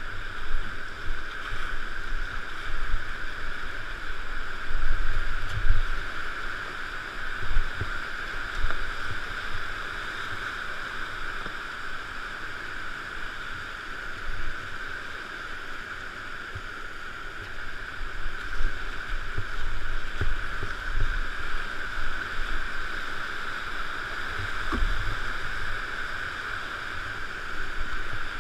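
Whitewater rapids rushing steadily around a kayak, with irregular low thumps throughout.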